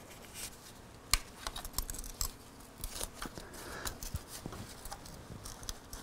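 Scattered light clicks and ticks of small metal parts being handled at a motorcycle's shift linkage, with one sharper click about a second in.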